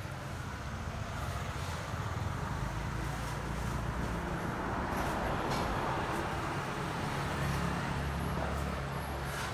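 A motor vehicle or heavy machine engine running with a steady low rumble, under a haze of road or traffic noise that swells to its loudest around the middle.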